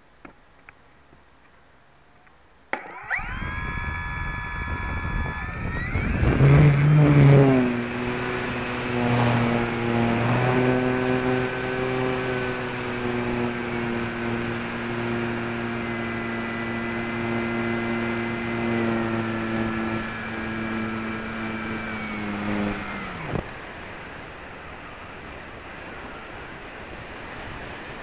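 Electric motor and propeller of a HobbyKing Walrus RC glider starting up about 3 s in, rising in pitch as it is throttled up for the launch, then running at a steady high whine until it cuts off about 23 s in. After the cut-off only wind rushes over the wing-mounted camera's microphone as the glider glides.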